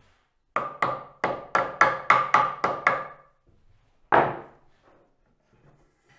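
Hammer knocking on wood to tap a dowelled joint together: eight quick knocks about three a second, then one louder knock about four seconds in, each with a short wooden ring.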